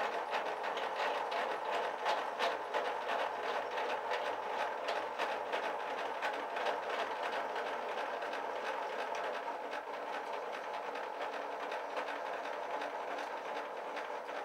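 Thickness planer's height-adjustment crank being turned to raise the planer, giving a steady run of small mechanical clicks and rattles that eases off slightly after about ten seconds.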